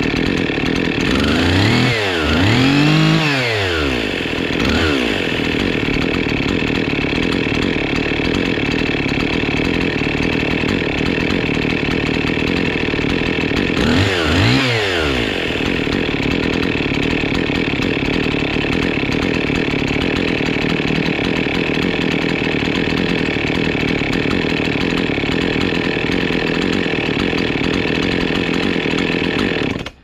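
Husqvarna 55 Rancher two-stroke chainsaw running at a steady idle, with a few quick throttle blips that rise and fall in pitch a couple of seconds in and again about fourteen seconds in. It idles evenly now that its fuel tank vent and fuel filter pickup have been replaced, curing its fuel-starved no-start.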